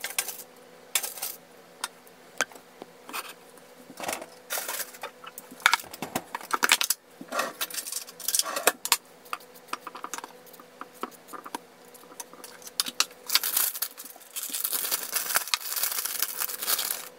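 Kitchen clatter while a breakfast is plated: scattered light clinks and taps of dishes and utensils, then a plastic bag of spinach rustling near the end, over a faint steady hum.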